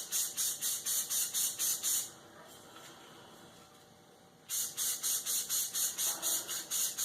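Aerosol spray paint can being shaken, its mixing ball rattling in quick, even strokes about four times a second. The shaking stops about two seconds in and starts again after a pause of about two and a half seconds.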